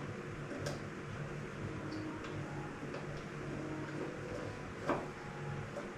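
A few light, irregular clicks and taps of hand work on a mirror mount, the sharpest about five seconds in, over a low steady hum.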